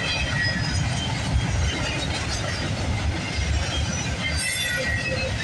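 CSX double-stack intermodal freight train's well cars rolling past: a steady rumble of steel wheels on rail, with short, faint high squeals from the wheels.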